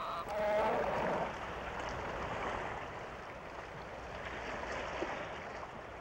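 Sea water washing and splashing, a steady noisy wash. A short pitched call sounds in the first second.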